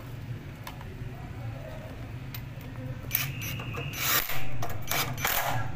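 Workshop tools and metal parts clicking and clattering during engine repair. About three seconds in comes a louder, noisier stretch with a brief high whine.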